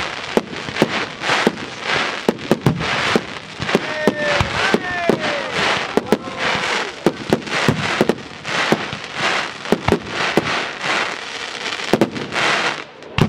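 A fireworks display: a rapid, irregular run of sharp bangs from aerial shells bursting, several a second, over continuous crackling, ending with one loud bang.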